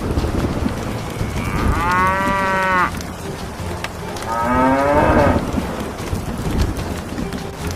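A cow mooing twice, each call lasting about a second, over a steady noisy background.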